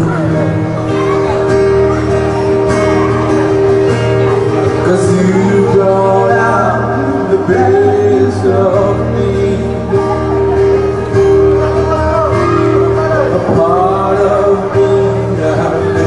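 Live acoustic band music: a man singing into a microphone over a strummed acoustic guitar and a keyboard, played through a PA in a large hall.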